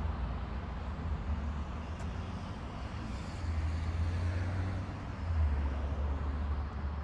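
Steady low rumble and road noise of a moving car.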